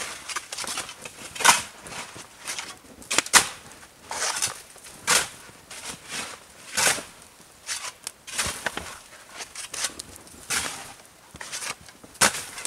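Axe chopping and splitting firewood: seven sharp blows land about every two seconds, with lighter knocks of wood between them.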